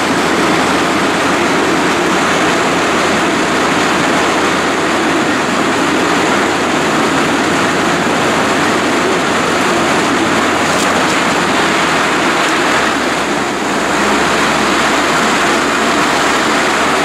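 Homemade rail cart, driven by a motorbike engine, running along a disused track: a loud, steady rush of the engine and the wheels on the rails.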